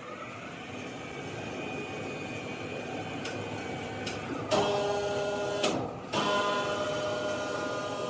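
Electric cable hoist motor whining as it carries a sawn wood slab, rising in pitch over the first couple of seconds. Past the middle it clicks off and on a few times, each time going to a louder, steadier whine.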